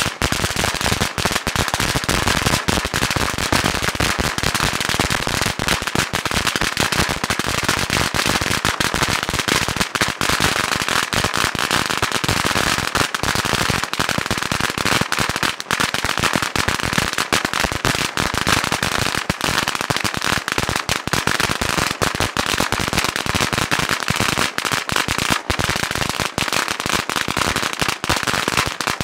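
A Dominator USA T736 8,000-count firecracker roll going off, its bangs coming so fast that they merge into one loud, unbroken crackle with no pauses.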